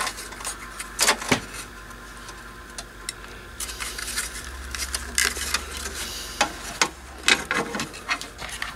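Scattered plastic clicks and light knocks as a small circuit board is worked out of a UPS's black plastic front-panel bezel, over a low steady hum.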